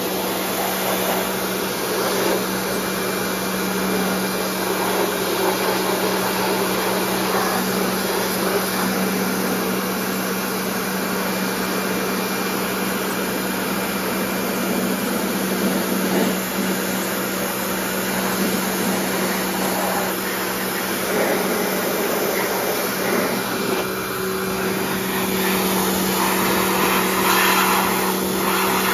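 Pressure washer running with a steady hum, its water jet hissing and spattering against the lawn mower's deck; the spray grows louder near the end.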